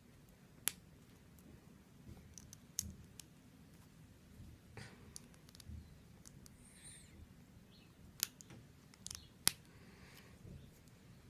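Small plastic Lego bricks being handled and pressed together: scattered sharp clicks over a faint background, the loudest a few seconds before the end.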